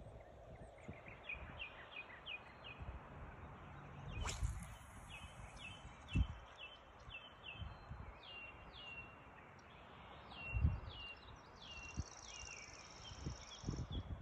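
Runs of short, rapid chirping calls from a small animal, repeated in quick series, over faint outdoor background noise. There is a brief sharp swish about four seconds in, and dull low bumps on the microphone.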